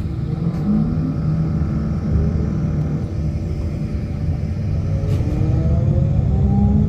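Electric traction motor (TSA TMF 35-44-4) of a Solaris Urbino 15LE electric bus whining with a tram-like tone over a heavy low rumble. From about five seconds in, several tones climb together in pitch as the bus speeds up.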